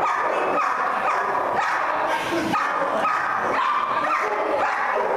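Rottweiler barking in quick succession, about two barks a second without a break, at a decoy during protection training.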